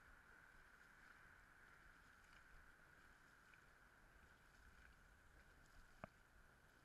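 Near silence: the faint, muffled sound of a dragon boat crew paddling the boat along, with one sharp click about six seconds in.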